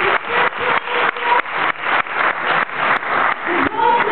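Crowd clapping in unison, about four claps a second, stopping near the end.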